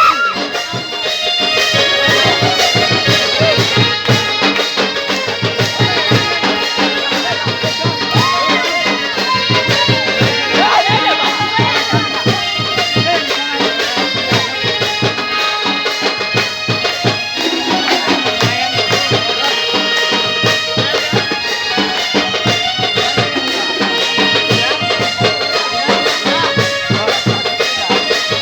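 Traditional folk music with a reed instrument such as accordion or bagpipes carrying a sustained melody over a fast, steady drum beat.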